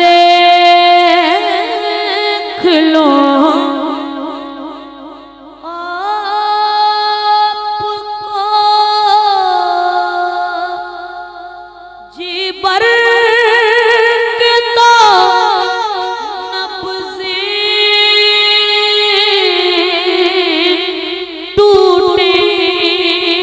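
Young male naat reciter singing a naat into a microphone: long drawn-out melismatic notes with wavering ornaments, in about four long phrases with short breaks between them.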